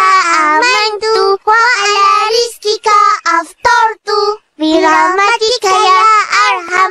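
Children's voices chanting the Arabic prayer for breaking the fast in a sing-song recitation, with a short pause about four seconds in.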